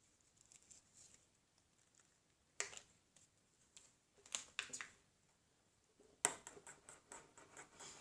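Fresh glue-and-borax slime being mixed and worked, with faint sticky clicks and crackles in a few short bursts, about two and a half, four and a half, and six to seven and a half seconds in.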